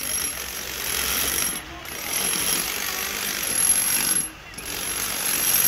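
A handheld electric power tool working a concrete footing, running with a rapid rattle and a high whine and stopping briefly twice.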